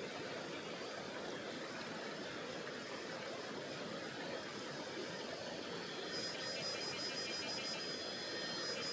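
Mountain river rushing steadily, a dense even hiss of flowing water. About six seconds in, a high, pulsing buzz starts over it and carries on.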